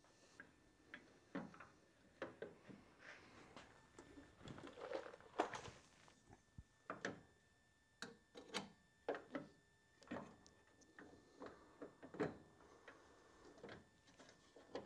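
Irregular light clicks, taps and knocks of a sealed-beam headlight unit and its retaining ring being pressed and fitted into a car fender's headlight bucket, with a busier patch of handling noise about four to six seconds in.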